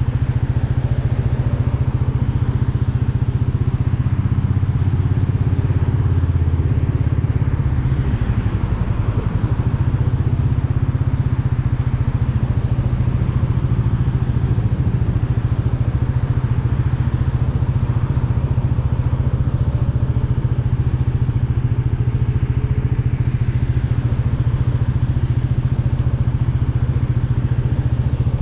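Royal Enfield Meteor 350's single-cylinder engine idling steadily while the bike stands still.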